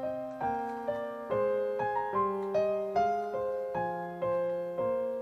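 Background piano music, a gentle melody of single struck notes at about two a second.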